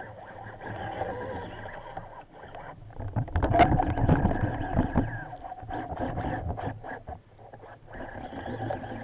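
Boat engine heard underwater: a steady humming drone that grows louder about three seconds in and eases off after about five seconds, with scattered faint clicks.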